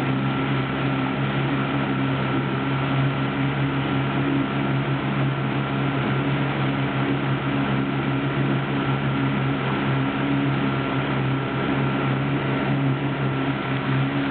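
Motorboat engine running steadily at speed, a constant hum that holds one pitch, over the rush of water past the hull.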